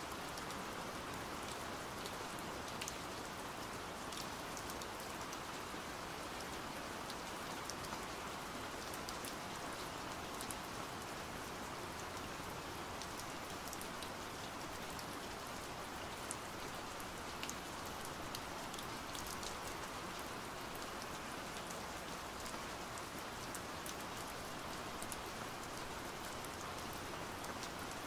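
Steady rain, an even hiss of falling rain with scattered sharp drop ticks throughout.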